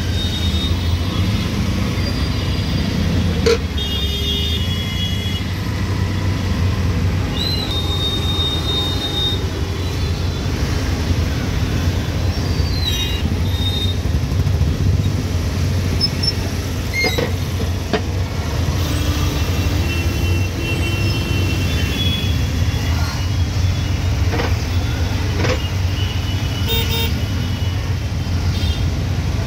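Street traffic heard from inside an auto-rickshaw: a steady low engine rumble, with horns tooting again and again, short blasts scattered throughout.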